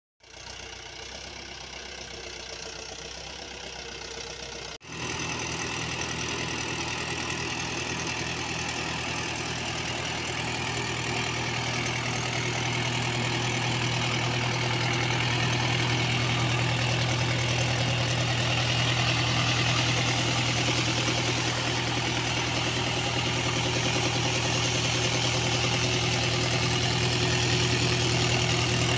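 Mahindra 415 DI XP Plus tractor's four-cylinder diesel engine idling steadily. It cuts in abruptly about five seconds in, after a short intro sound, and grows slightly louder toward the end.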